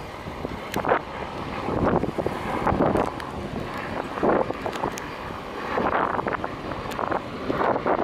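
Wind buffeting the microphone: a rushing, rumbling noise that swells and dies back in gusts every second or two.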